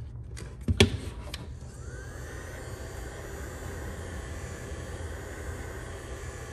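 A few sharp clicks, the loudest just under a second in, then a heat gun switches on about a second and a half in and runs with a steady blowing hiss, its fan note rising briefly as it spins up.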